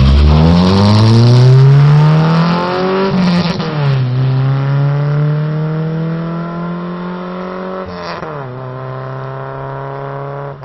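Mitsubishi Colt four-cylinder engine through a Magnaflow aftermarket muffler, accelerating hard away through the gears. The note climbs, drops at a gear change a little after three seconds, climbs again and drops at another shift around eight seconds, fading as the car pulls away.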